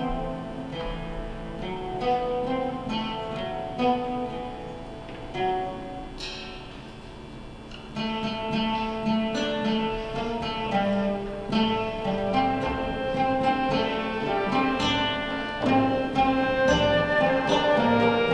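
Live acoustic ensemble playing a medley of ancient Greek music: plucked lute-family strings carrying a moving melody, with a flute and held bowed-string notes.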